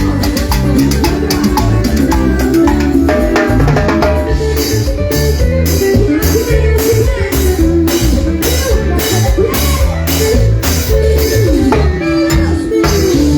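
Loud salsa-style Latin music with drums and a bass line. From about a third of the way in, sharp percussion strikes keep a steady beat of about two a second.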